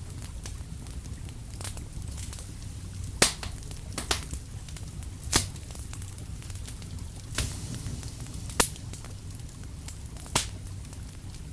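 Fire crackling: a steady low rustle of flame with about six sharp pops spaced a second or two apart.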